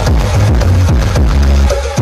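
Electronic music with heavy bass played loud through a large Difasol Audio carnival sound system rig during a sound check. Falling bass sweeps repeat in a pattern about every two seconds.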